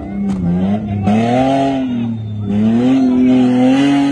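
Off-road 4x4 SUV's engine revving hard in repeated surges, rising and falling in pitch about once a second as it powers up a dirt slope. A rushing hiss from the spinning tyres and flung dirt accompanies each surge.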